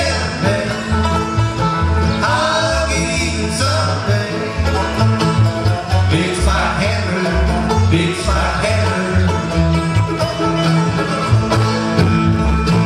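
Bluegrass band playing live: banjo and mandolin picking over acoustic guitar and an upright bass walking through its notes.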